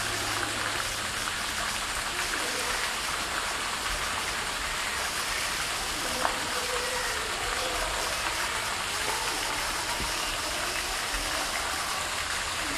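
Steady rushing noise like running water, with a single sharp tick about halfway through.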